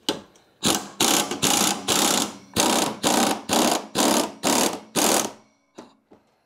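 Pneumatic air ratchet run in short bursts, about ten pulses at roughly two a second, backing off the spring compressor from the coil spring of a new magnetic-ride strut.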